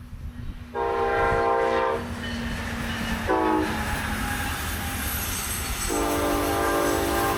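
Brightline passenger train's horn sounding long, short, then long again, the end of the standard long-long-short-long warning for a grade crossing, over the rising rumble of the train approaching on the rails.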